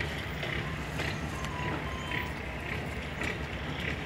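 Steady low engine hum, with a higher-pitched sound repeating about twice a second over it.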